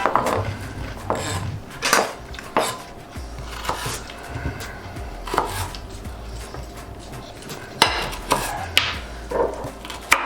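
Knife chopping on a cutting board in irregular strokes, a few each second, with one louder chop about eight seconds in.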